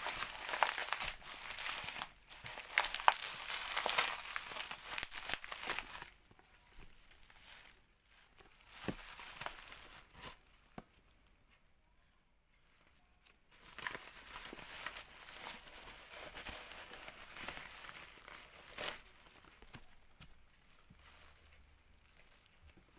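Packaging being unwrapped: crinkling and tearing, busiest for about the first six seconds, then quieter scattered rustles and clicks with a short lull in the middle.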